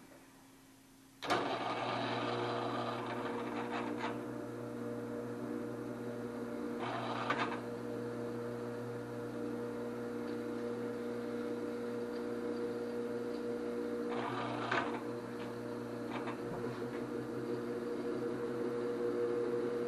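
Drill press switching on about a second in and running steadily at slow speed, a step drill bit cutting into quarter-inch hot-rolled steel plate, with a few short spells of scraping as the bit is fed into the metal.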